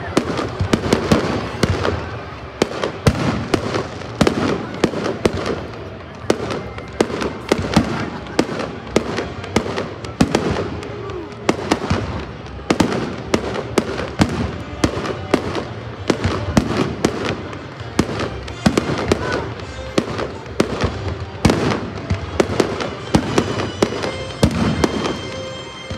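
Aerial fireworks shells bursting in quick succession, with many sharp bangs and crackles.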